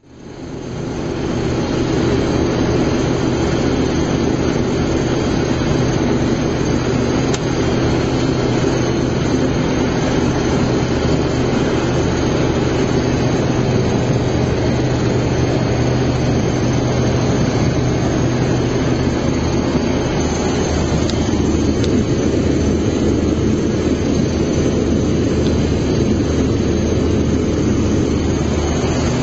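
Combine harvester running steadily in the corn, a continuous heavy engine and machinery drone whose low hum shifts slightly about two-thirds of the way through.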